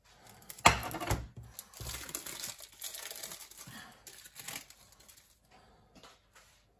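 Plastic cheese-slice packaging crinkling and rustling as it is handled, after a sharp knock about half a second in. The crinkling dies away to a few small clicks near the end.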